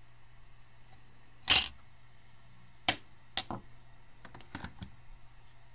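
Small metal tools and loose transistor pins clicking and tapping on a wooden workbench during desoldering: a short scraping burst about a second and a half in, then two sharp clicks and a quick run of light ticks.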